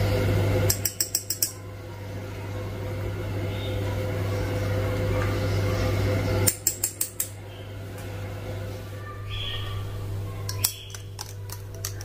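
A metal spoon clinking rapidly against a drinking glass while stirring, in three short runs of quick ticks: about a second in, midway, and near the end.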